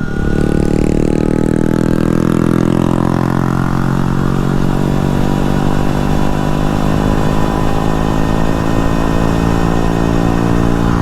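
Dirt bike riding along the road at speed: a steady, pitched motor hum that climbs a little in the first couple of seconds, with wind buffeting the helmet microphone.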